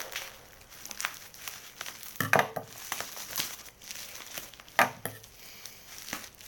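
Plastic packaging wrap crinkling and tearing as a tightly wrapped parcel is pulled open: a run of short crackles, with two louder bursts about two and five seconds in.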